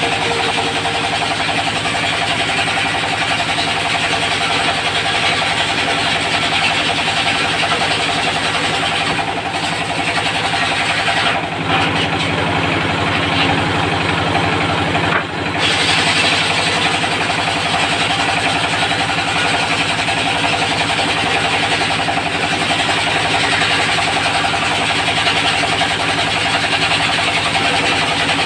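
Diesel engine running steadily, driving the disc blade of a locally built portable circular sawmill (serkel) sawing teak. Around the middle the sound turns lower for a few seconds, with two brief dips in level.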